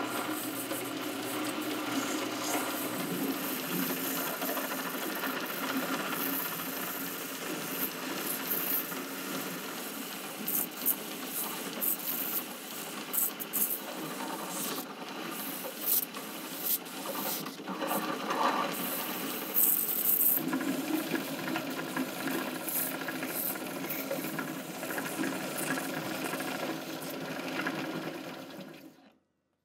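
Small belt sander running, its abrasive belt rasping against a wooden knife-handle scale pressed to it in short passes, with sharper scraping bursts through the middle. The sound fades out just before the end.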